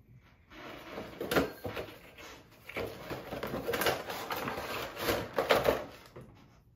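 Cardboard collector's box and plastic packaging being handled: an inner box slid out of its sleeve and a clear plastic tray pulled free, with irregular scraping, rustling and light knocks, the sharpest about a second and a half in.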